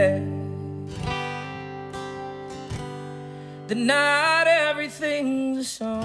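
Acoustic guitar strummed and left ringing in a slow country song, with a man's voice singing one long held note about four seconds in.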